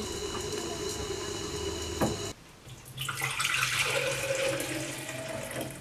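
Silver-nitrate solution boiling in a stainless steel pot over a gas burner, a steady low rumble and hiss. After a cut about two seconds in, the boiled-down solution is poured from the pot into a glass beaker, a splashing trickle of liquid that tails off near the end.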